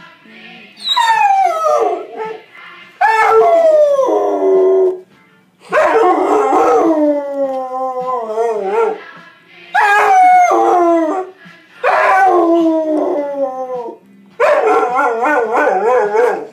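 A Rottweiler howling along to music: six long howls, each starting high and sliding down in pitch, with short breaks between them.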